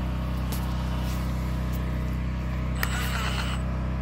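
A small engine running steadily with an even hum. About three seconds in, a power tool whirs briefly over it.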